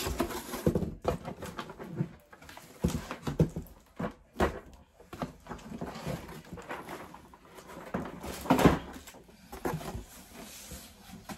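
Cardboard shipping box being handled and unpacked: flaps rubbing and scraping, with irregular knocks as a boxed bead storage tray is lifted out and set down. The loudest handling noise comes a little before the end.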